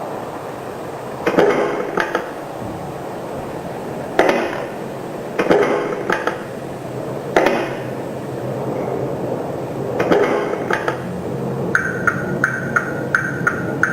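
Truck sound effects from an RC vehicle sound module: a steady engine-like background broken by five short, loud bursts of noise, then, near the end, a regular high beeping like a reversing alarm, two or three beeps a second.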